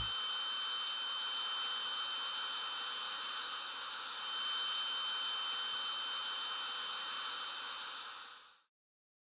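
A steady high-pitched ringing tone over a bright hiss, the ear-ringing effect that follows a blast. It fades out about eight and a half seconds in.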